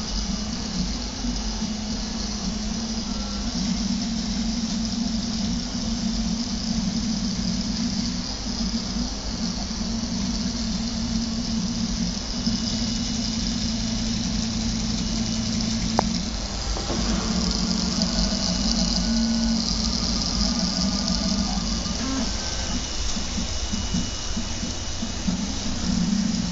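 Prusa Mendel RepRap 3D printer running: a steady mechanical hum and hiss, with stepper motors whining at several shifting pitches. A single sharp click comes about two-thirds of the way through, and the motor tones change after it.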